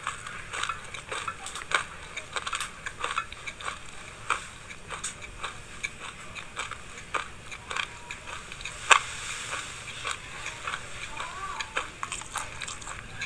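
Chewing a mouthful of raw sesame seeds mixed with peanuts and sunflower kernels: a steady run of small, irregular crunches and clicks, with one louder crunch about nine seconds in.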